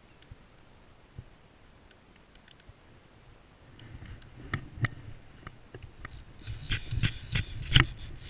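Fabric rustling and knocking against the microphone as a jacket sleeve brushes over a body-worn camera. It starts faint about halfway through and turns into a dense rustle with several sharp knocks near the end, the loudest just before it stops.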